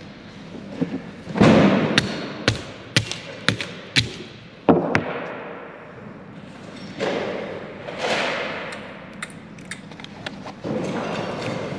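Hammer striking old broken iPhones on a wooden workbench: about seven sharp blows, roughly half a second apart, the first the loudest. Then a few longer scraping, handling noises.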